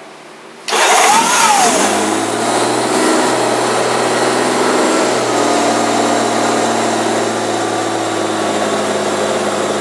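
A 1994 Honda Gold Wing GL1500 SE's carbureted flat-six engine is started with the choke on. It fires about a second in and rises then falls in pitch as it catches, then settles into a steady idle on choke.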